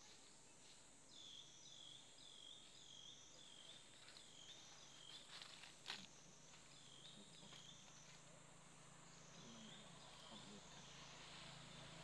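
Faint forest insect drone, high-pitched and swelling and fading in a slow wave about once a second, with runs of short, quick chirps a little lower in pitch. A single sharp click comes about six seconds in.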